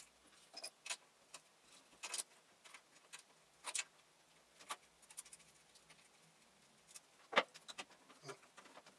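Scattered small metallic clicks and taps of a small spanner and screws being handled at close range, irregular, with one sharper knock about seven seconds in.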